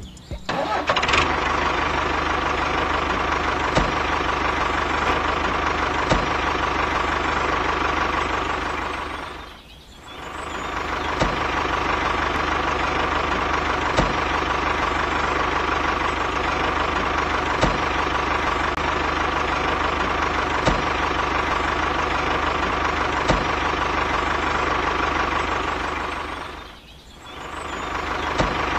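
A diesel engine running steadily, with a sharp tick about every two and a half seconds. The sound fades down and back up about ten seconds in and again near the end.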